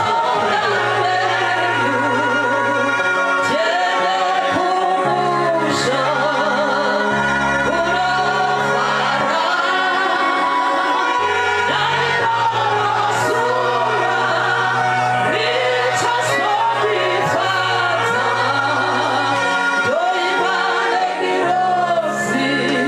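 Gospel singing: several voices sing with wavering vibrato over held low accompaniment notes that shift every few seconds.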